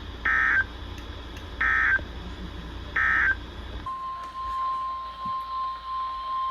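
Three short bursts of Emergency Alert System data tones, the end-of-message code closing the flash flood warning. About four seconds in, a steady single-pitch NOAA Weather Radio warning alarm tone starts and holds, announcing the next alert.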